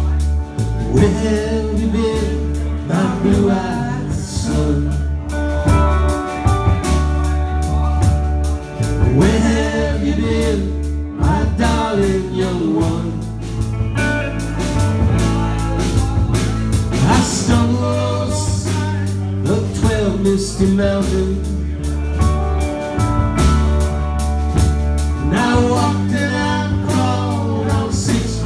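Live rock band playing electric guitars and a drum kit, with a man singing over the band in several phrases.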